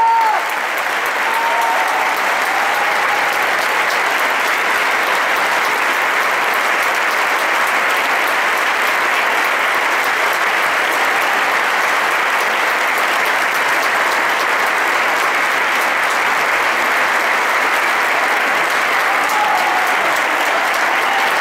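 Audience applauding steadily, with a few voices calling out near the start and again near the end.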